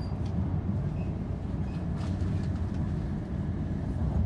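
Steady low running rumble of an E5 series Shinkansen, heard inside the passenger car at speed.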